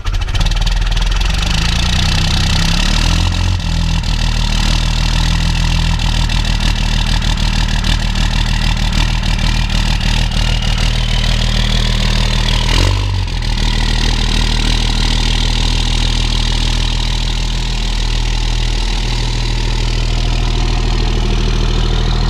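VP44-injected 24-valve Cummins 5.9 L inline-six diesel idling steadily through a straight-pipe exhaust, having just fired on a -25° cold start.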